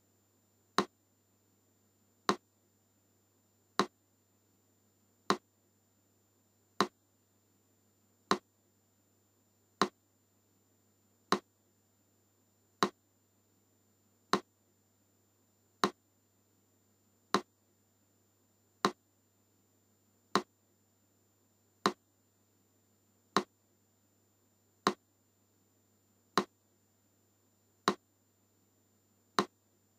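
Metronome ticking slowly and evenly, one sharp click about every second and a half (about 40 beats a minute).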